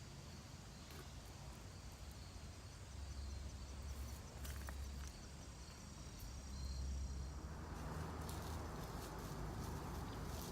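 Insects chirping in an even, fast pulse, faint and high-pitched, over a low rumble. A rustling noise with light clicks rises about three-quarters of the way through.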